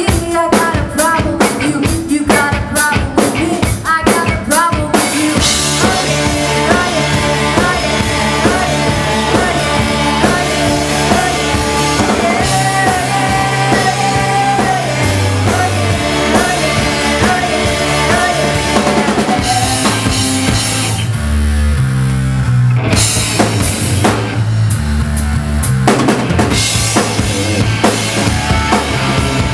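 Rock band playing live, instrumental: the drum kit plays alone for about the first five seconds, then bass and guitars join in a full-band groove. A little after twenty seconds the higher instruments drop away for a few seconds, leaving mostly bass and drums, before the full band comes back.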